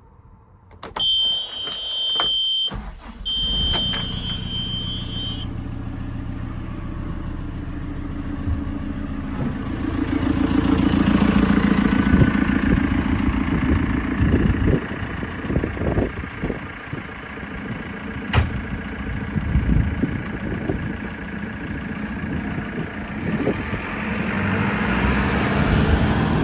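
JCB 3CX backhoe loader's diesel engine starting and running, with two high electronic beeps in the first few seconds; the engine gets louder about ten seconds in as it is revved, then eases back, rising again near the end.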